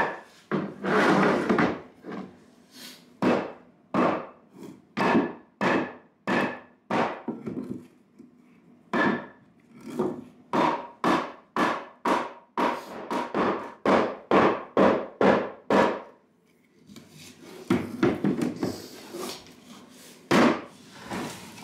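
Old painted wooden wall panelling being worked by hand: a long run of short wooden knocks and scraping strokes, about two a second, with a brief lull late on before rougher scraping.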